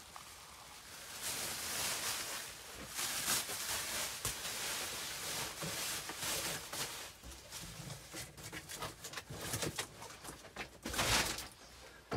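Bubble wrap and plastic packaging rustling and crinkling as it is handled and cleared away, with scattered small knocks and a louder rustle near the end.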